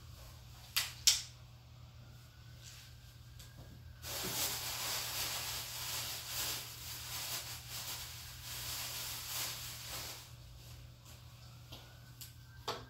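Two sharp clicks, then pressurised gas hissing from a nozzle for about six seconds in uneven spurts, then another click near the end.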